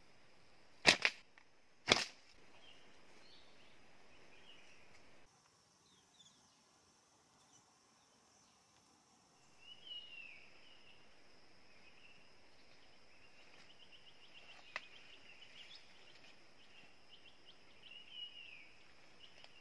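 Slingshot shots: two sharp snaps about a second apart. Later, birds give short downward-sliding calls over a steady high insect drone.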